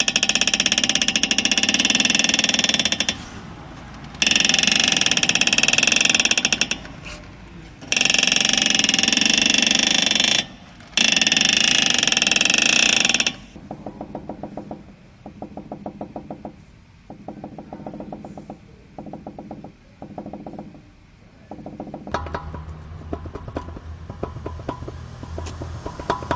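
Workshop air tool hammering in four loud bursts of very rapid impacts, each two to three seconds long. Lighter rhythmic clicking follows, and music with a beat comes in about 22 seconds in.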